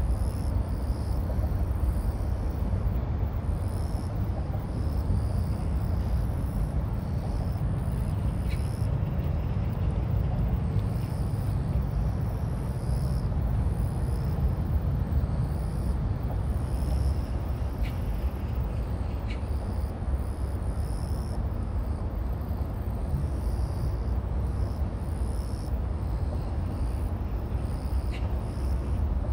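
Steady low outdoor rumble without any rise or fall, with a few faint short ticks.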